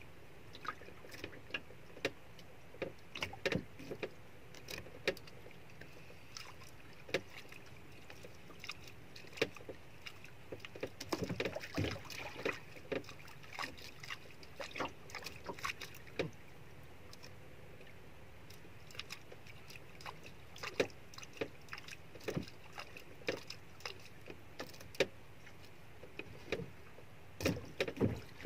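Water lapping and knocking against the hull of a small wooden outrigger boat at sea: irregular light knocks and small splashes over a steady hiss.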